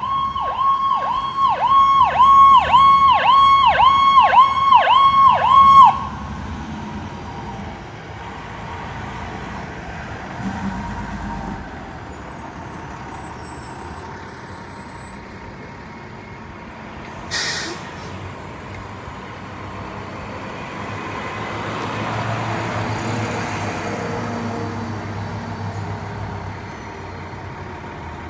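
Fire engine's electronic siren yelping, a fast rising-and-falling wail about two cycles a second, cutting off abruptly about six seconds in. Then heavy fire apparatus run past on diesel engines, with a short air-brake hiss partway through and a deeper truck engine growing louder and then fading later on.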